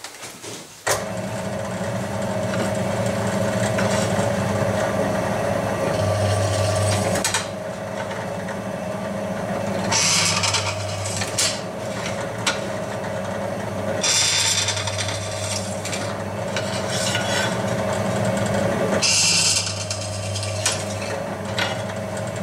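Scheppach benchtop drill press switching on about a second in and running steadily. Three times the bit cuts into a 6 mm aluminium plate with a high scraping hiss, drilling away material to open undersized, partly melted laser-cut holes to size.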